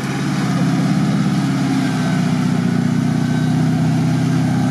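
An old jeep-type 4x4's engine running steadily under load as the vehicle wades through a muddy water hole, its pitch wavering slightly.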